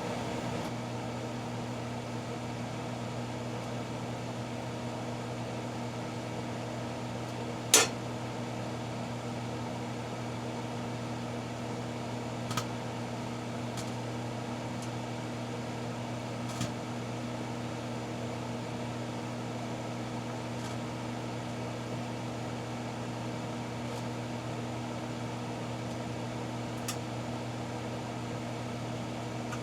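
1987 GE microwave oven running with a steady hum while a large floodlight bulb inside it breaks down. A loud sharp crack comes about eight seconds in, followed by a few fainter pops and ticks from the bulb.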